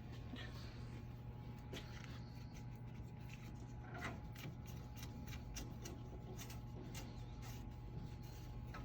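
Faint scattered clicks and rubbing of switch parts being handled as the knob is fitted onto an IDEC switch, over a steady low hum.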